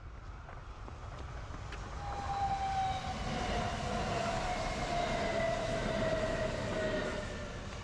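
An electric train passing. Its rumble swells up about two seconds in and eases off near the end, and a motor whine slides slowly down in pitch as it goes by.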